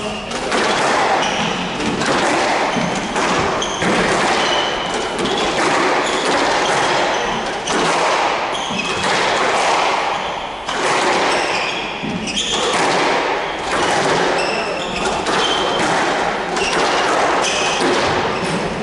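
Squash rally: the ball struck by the rackets and hitting the walls in a quick series of sharp thuds, with short high squeaks from the players' shoes on the wooden court floor.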